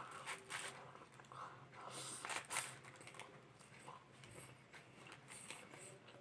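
Close-up mouth sounds of a person eating chicken fillet with rice and gravy: quiet, irregular wet clicks and smacks of chewing and biting, with a louder smack about two and a half seconds in.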